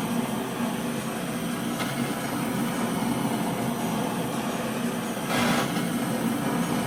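Gas torch burning steadily while heating an aluminium engine cover, with a brief louder rush of noise about five seconds in.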